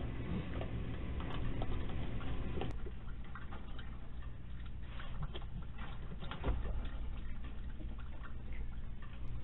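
Irregular clicks and crunches of small animals eating dry cat food from bowls, over a steady low hum from the security camera's microphone.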